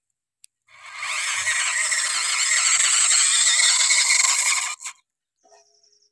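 Small electric motor and gears of a homemade toy tractor running, a steady whirring grind that starts about a second in and cuts off sharply about four seconds later.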